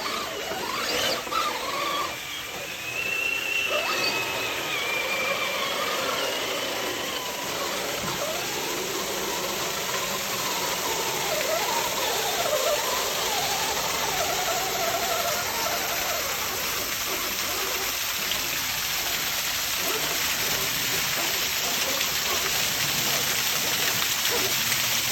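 Steady rush of a waterfall, with a thin wavering whine rising and falling over it for the first several seconds and again around the middle.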